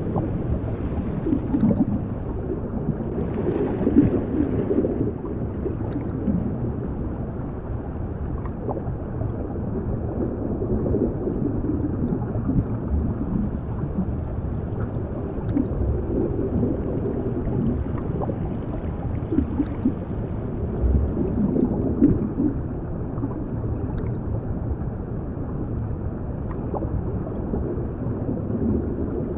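Underwater drowning sound effect: muffled bubbling and gurgling over a steady low rumble, with a few faint clicks.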